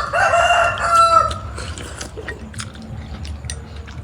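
A rooster crowing once, a single call of a little over a second right at the start, followed by small scattered clicks of eating and dishes.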